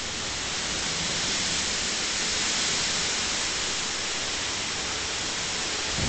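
Steady rain falling, an even hiss with no breaks, swelling slightly midway.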